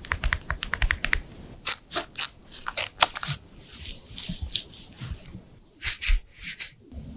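Plastic wet-wipe packet and wipes being handled. A fast run of about ten sharp clicks in the first second is followed by a series of short, crisp rustling swipes, coming in two clusters.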